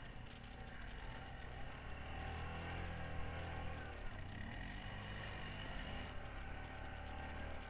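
Quad bike (ATV) engine running steadily at low speed, heard from a camera mounted on the machine, with crackling noise on the microphone.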